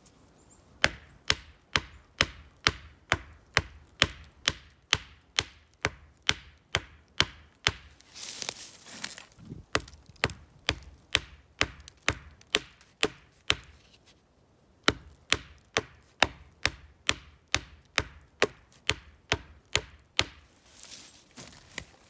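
Hafted stone axe chopping into a green black walnut sapling trunk: sharp blows about two a second, in three runs with short pauses between them.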